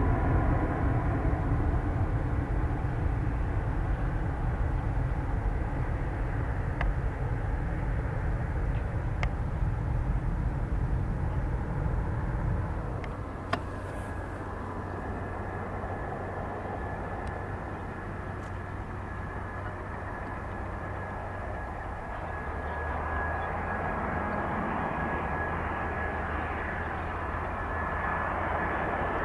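Airbus A320 jet engines running, a loud steady rumble that eases about halfway through to a quieter rumble with a thin, steady high whine.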